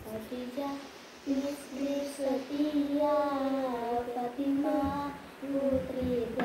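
A girl singing sholawat, the Islamic devotional song, in a single voice with long held notes that waver and slide in pitch, with a short break about a second in.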